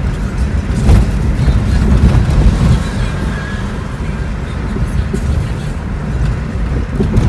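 Road and engine noise inside a moving car's cabin: a steady heavy low rumble, with a sharp knock about a second in.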